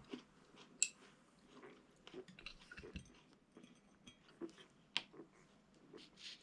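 Faint chewing with scattered small clicks of tableware, and two sharper clicks, one just under a second in and one at about five seconds.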